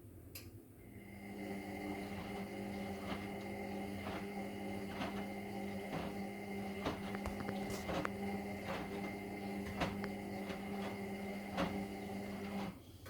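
Indesit MyTime EWD71452 washing machine's brushed motor turning the drum in a wash tumble: a click, then the motor starts about a second in with a steady hum and a high whine, with soft knocks about once a second, and stops suddenly near the end.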